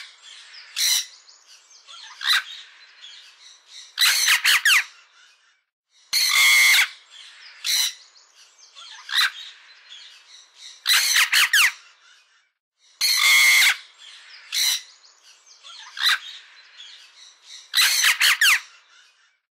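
Parrot squawking: loud, harsh screeches every one to two seconds, some drawn out and some short, with softer calls in between.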